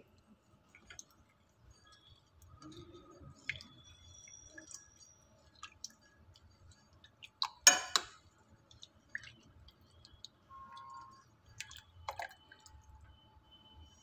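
Metal spoon stirring milk into a butter-and-flour roux in a glass bowl: faint scattered scrapes and clicks of the spoon against the glass, with one louder clink about eight seconds in and a smaller one about twelve seconds in.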